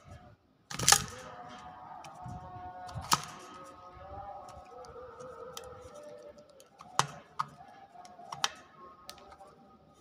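Sharp clicks and taps from a hill myna moving against the camera in its wire cage: a loud one about a second in, one around three seconds, and a cluster of lighter taps near the end, over faint steady tones.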